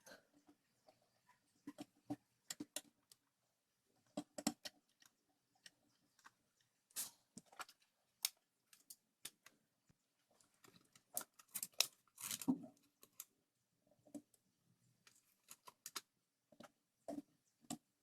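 Irregular light clicks and knocks of small hard objects being handled, a few at a time, with a denser cluster about eleven to thirteen seconds in.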